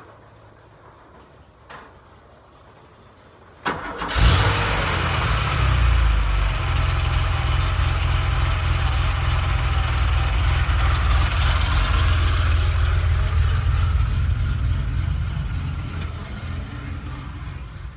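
Porsche 911 SC's air-cooled flat-six engine cranked by the starter, catching about four seconds in, then idling steadily, easing off slightly near the end.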